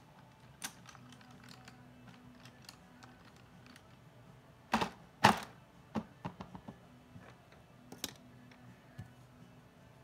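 Pencils clattering and clicking as a hard black pencil case is rummaged through for a colored pencil, with two louder knocks about five seconds in as the case's lid is shut, then a scatter of lighter clicks.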